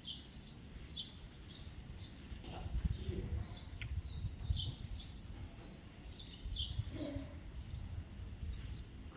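Small birds chirping repeatedly in short, high calls, over a low rumble.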